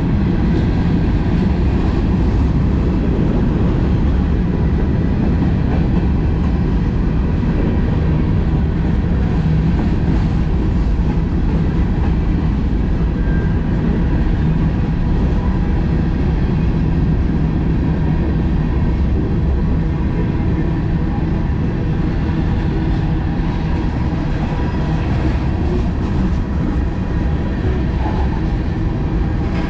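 Freight cars of a mixed manifest train rolling past at a steady speed, a continuous rumble of wheels on rail.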